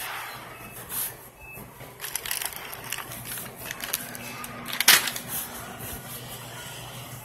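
Wire shopping cart rattling and clattering as it is pushed, with one sharp metallic clack about five seconds in, over a steady low hum of store refrigeration.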